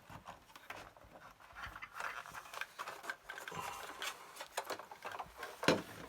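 Irregular clicks, taps and scraping as parts of a Commodore MPS-801 dot-matrix printer are handled and moved during disassembly, with one sharper knock near the end.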